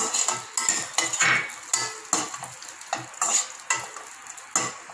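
Cashews and raisins sizzling in hot ghee in a stainless steel pan, stirred with a slotted steel spatula that scrapes and clinks against the pan in repeated irregular strokes.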